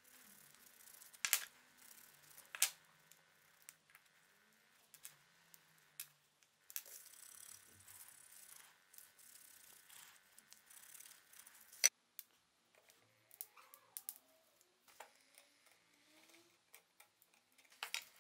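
Faint handling noise of small parts on a wooden workbench: scattered clicks and light knocks as wooden handle scales, short aluminium pins and the taped cleaver blade are picked up and set down, with one sharp click about twelve seconds in and a short scuffing sound near the end.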